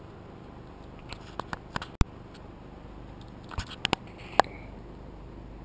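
Handling noise as the camera is picked up and moved: a scatter of light clicks and knocks, with a sharp click about two seconds in and a few more near the end.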